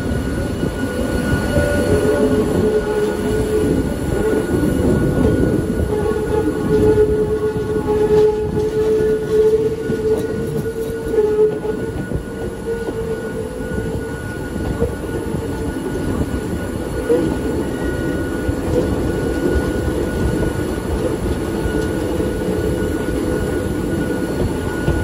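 Hakone Tozan Railway's oldest electric railcar running, heard from on board: a steady rumble of wheels on rail with sustained wheel-squeal tones, a little louder about eight to ten seconds in. Squeal like this is the sign of the wheels taking one of the line's tight curves.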